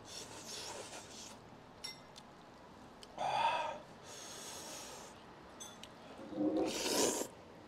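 A man's breath sounds while eating noodles: several puffs of breath as he blows on a lifted mouthful, a short pitched snort about three seconds in, and the loudest blow near the end.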